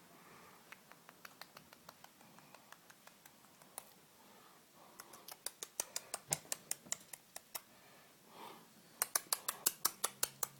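A series of quick, sharp clicks. They are faint and sparse at first, then come louder in runs of about four to five a second from about halfway in, with a brief soft sound between the last two runs.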